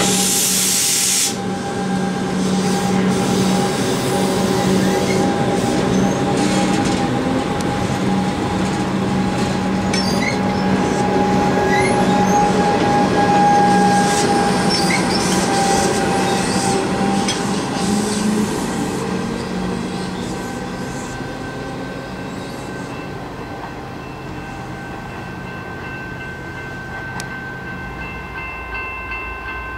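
Comeng electric multiple unit running past the platform, with a steady mix of wheel-on-rail noise and humming tones and some rising whine in the first half. The sound fades gradually as the train moves away.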